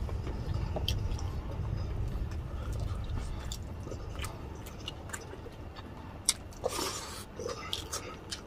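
Close-miked chewing and wet mouth smacks of people eating braised pork hock (humba) and rice, with scattered sharp clicks and a few louder ones near the end.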